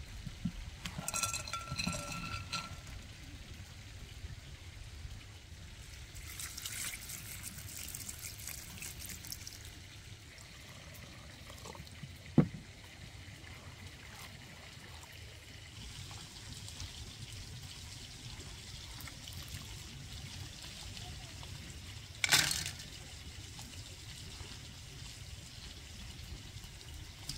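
Liquid being poured for a few seconds, amid kitchen work: a short ringing clink near the start, a sharp knock about halfway through, and another brief clatter later on.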